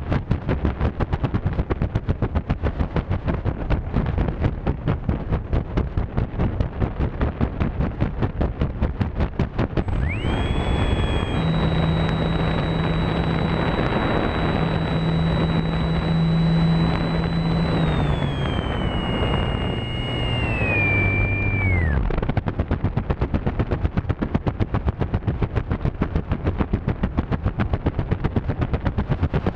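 Small electric RC model plane in flight, heard from a camera on its nose: the spinning propeller gives a rapid, even fluttering on the microphone. From about ten seconds in, a steady electric motor whine takes over, drops in pitch twice as the throttle comes back, and cuts off after about twelve seconds, then the rapid propeller fluttering returns.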